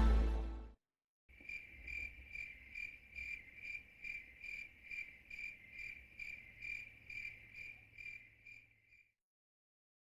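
Music fades out in the first second, then a cricket chirps steadily, about two high-pitched chirps a second, stopping about a second before the end.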